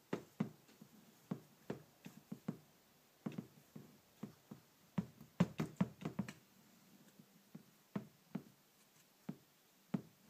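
Irregular sharp knocks and taps, bunched most thickly about halfway through, as a stubborn bracket is worked off a motorcycle carburetor bank.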